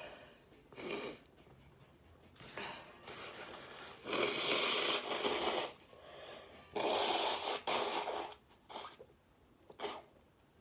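A woman sneezing: short wheezy breaths, then two loud, noisy sneezes about four and seven seconds in, followed by a few small breaths.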